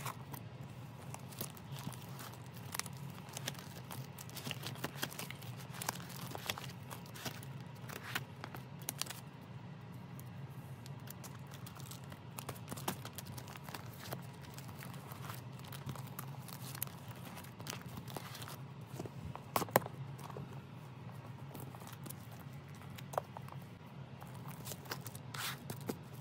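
Plastic binder sleeves rustling and crinkling as photocard pages are turned and handled, with scattered small clicks and taps and one sharper click about two-thirds of the way in, over a low steady hum.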